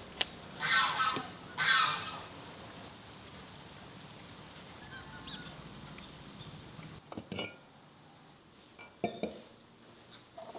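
Domestic geese honking, two loud calls in the first two seconds, then quieter background. About seven seconds in, a few light knocks and clinks.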